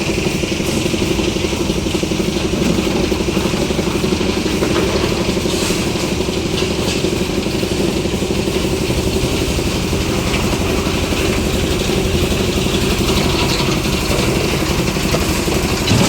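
Engine of a concrete mixer-and-lift machine running steadily at a constant speed during a slab pour.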